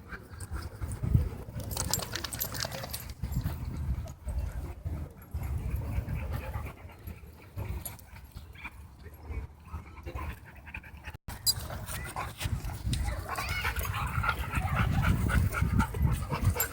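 Dogs panting hard and growling while they wrestle in play.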